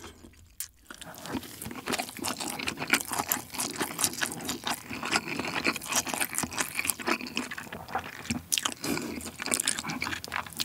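Close-miked chewing of a mouthful of spicy gopchang (intestine) fried rice: a steady run of small, moist clicks and crackles starting about a second in.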